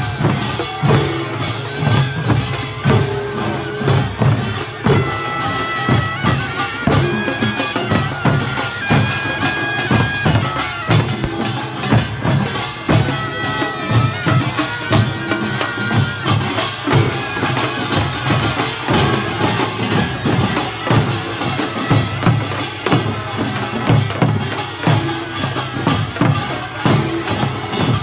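Korean pungmul (farmers' band) music: a shrill reed-horn melody, typical of the taepyeongso, held in long stepping notes over a steady beat of drums and gongs.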